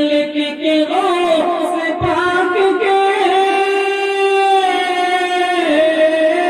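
A man singing a naat solo into a stage microphone, drawing out a wordless melisma in long bending notes, with one note held steady for about a second and a half near the middle.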